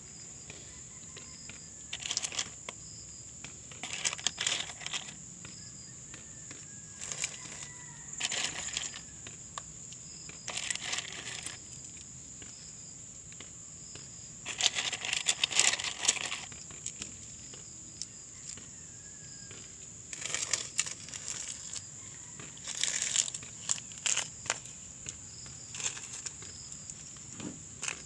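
A steady high-pitched insect drone, with a dozen or so short bursts of crinkly rustling from hands handling the plastic plant pots and the leaves; the longest burst comes about halfway through.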